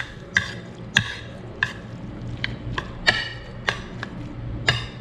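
Metal spoon and fork clinking and scraping against a plate while tossing a plate of fried instant noodles. The clinks are sharp and irregular, roughly two a second.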